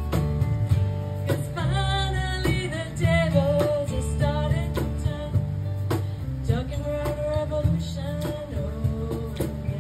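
A woman singing into a microphone over a guitar backing track, holding long, wavering notes; an untrained voice that, by her own account, misses the notes and the rhythm.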